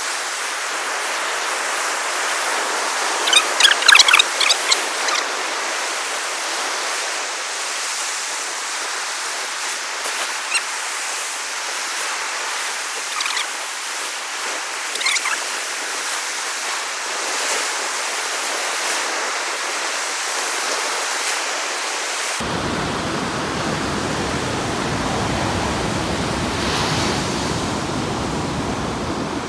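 Surf breaking on a beach, a steady rushing hiss. A cluster of short, sharp sounds comes about three to five seconds in, and about two-thirds of the way through the sound abruptly turns deeper and fuller.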